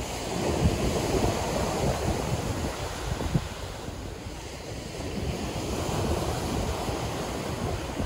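Sea waves breaking and washing up a pebble beach, the surf swelling twice, about a second in and again around six seconds, with wind buffeting the microphone.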